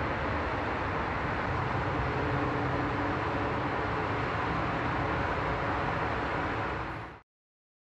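Steady outdoor city noise, a hum of distant road traffic picked up by a phone's microphone; it cuts off abruptly about seven seconds in.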